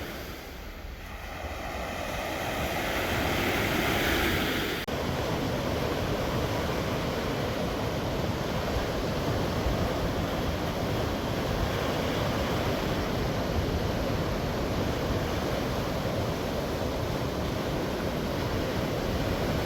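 Sea waves breaking and washing on the shore, with wind rumbling on the microphone. A wave swells up over the first few seconds, then about five seconds in the sound cuts abruptly to a steady rush of surf and wind.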